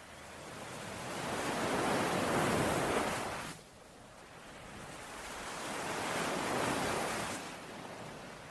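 Ocean waves washing onto a shore, two surges: the first builds and breaks off suddenly about three and a half seconds in, the second swells and fades near the end.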